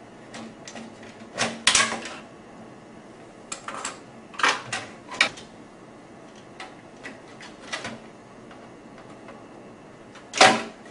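Irregular plastic clicks, snaps and knocks as the top cover of an HP LaserJet 1320 printer is pried loose and lifted off its metal chassis, the loudest snaps about a second and a half in and near the end.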